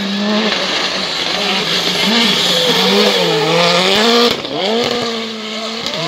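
R5 rally car's 1.6-litre turbocharged four-cylinder engine at full effort through a hairpin, its pitch repeatedly falling and rising as the driver brakes, changes gear and accelerates. A sudden short drop about four seconds in.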